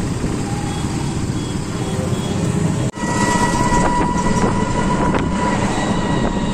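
Rickshaw moving along a road: a steady rumble of the ride and road noise. A brief dropout comes about three seconds in, after which a steady high whine runs under the rumble.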